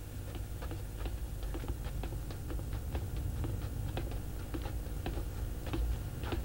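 Footsteps of several people walking across a hard floor: an irregular patter of short clicks, about three or four a second, over a low steady hum.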